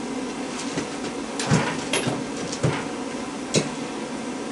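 Four separate knocks and clunks from scrap microwave-oven transformers being handled and set down, the loudest about one and a half seconds in.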